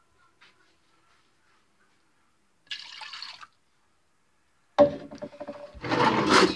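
Water being poured from a plastic cup into a mixing bowl of glue, splashing. It starts with a sharp knock near the end and grows louder just before it stops, after a brief hiss about three seconds in.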